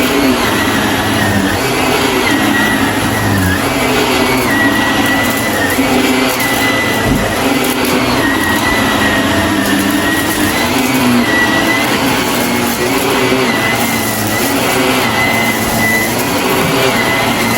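Shark vacuum cleaner running steadily, its motor whine dipping briefly every couple of seconds, with the crunch of debris being sucked up.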